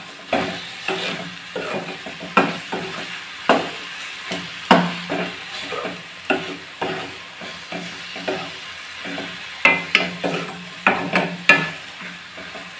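Metal ladle scraping and knocking against a metal kadai in irregular strokes, about one or two a second, stirring a thick onion-garlic masala paste as it fries in oil over medium heat.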